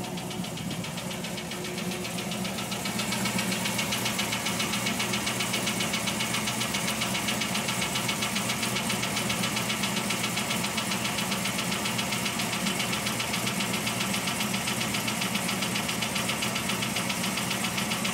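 GM LS V8 engine running with a fast, even ticking from the valve lifters, which the owner calls typical lifter noise. The ticking gets louder about three seconds in.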